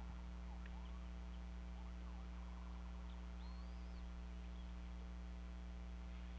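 Steady low hum of a nest-camera microphone, with faint, short, upward-gliding bird chirps over it, one higher arched chirp coming about three and a half seconds in.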